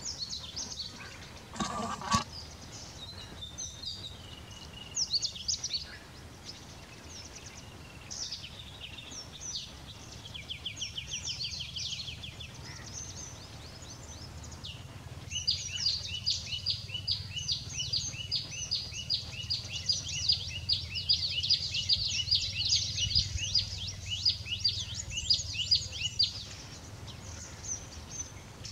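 Small birds calling: scattered short high notes, then a long run of rapid, high repeated notes, about three or four a second, for some ten seconds in the second half. A brief, louder, lower sound comes about two seconds in.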